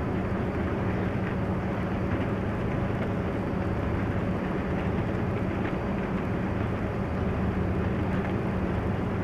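Paper mill machinery running, a steady mechanical rumble with a low hum.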